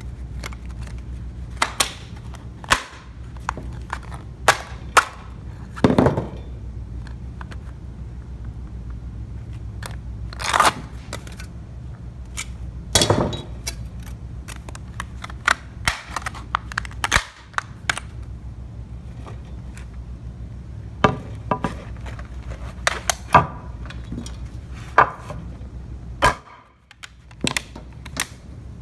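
Claw hammer striking the sheet metal of a dismantled tin can on a wooden board: irregular single sharp knocks, sometimes two or three close together, with pauses of a few seconds between groups.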